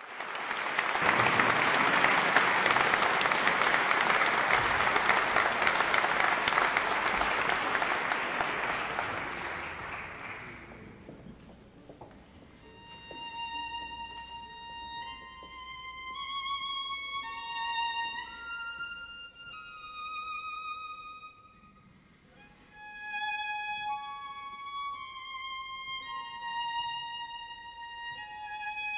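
Contemporary ensemble music for bowed strings. It opens with a loud, noisy rushing sound that fades away over about ten seconds. Then a violin plays slow, high, held notes, stepping from one note to the next, with a brief pause about two-thirds of the way through.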